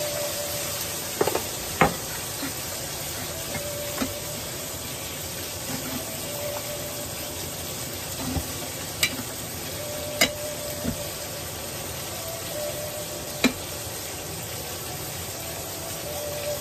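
Ribeye steak frying in a pan: a steady sizzling hiss, with several sharp clinks of utensils and dishes scattered through it.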